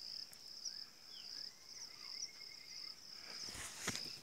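Crickets chirping steadily, a high-pitched pulsing trill, with a few sharp knocks near the end.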